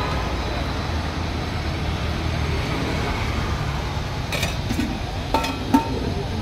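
Steady low rumble of road traffic. Between about four and six seconds in come several sharp, ringing metallic clinks: a steel serving ladle knocking against steel pots and plates.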